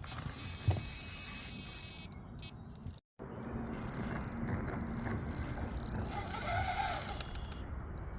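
Fishing reel clicking rapidly as line is pulled off it, for about the first two seconds, the sign of a fish taking line on a run. After a sudden break comes steady outdoor background noise.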